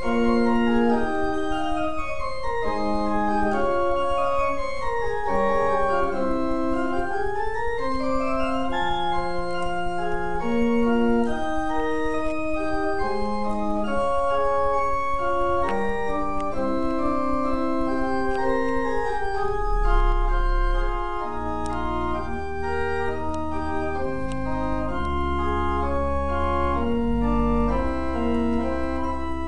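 Church pipe organ playing a flowing piece of many short notes in a steady stream. Deep bass pedal notes come in about two-thirds of the way through.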